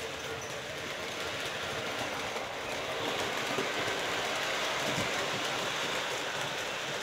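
Lionel Polar Express model train running along its track, a steady rolling rumble that gets louder about three seconds in as the train passes close by.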